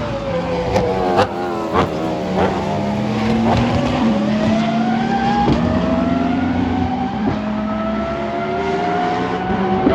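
Racing car engine on track, with a few sharp throttle blips in the first two seconds. After that it pulls up through the gears: the pitch rises steadily, drops suddenly at each upshift, then climbs again. A steady lower engine tone runs underneath.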